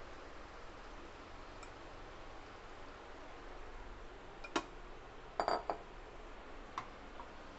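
Faint steady sizzle of marinated chicken and masala paste cooking in hot oil in a pan, broken by sharp clinks of a kitchen utensil: one about four and a half seconds in, a quick cluster about a second later, and one more near the end.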